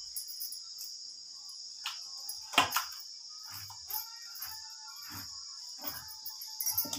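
A hand scraping ground greens paste off a stone grinding slab (sil-batta) into a steel bowl: a handful of soft scrapes and knocks, the loudest about two and a half seconds in, over a steady high-pitched chirring.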